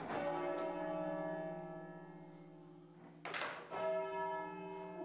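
The 7th and tenor church bells being rung up on their ropes, swinging higher with each pull. A bell strikes at the start and hums on, fading, then two more strikes come close together a little over three seconds in.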